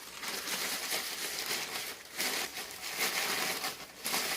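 Rustling and crinkling of a bag of building gypsum (alabaster) being handled, in irregular surges.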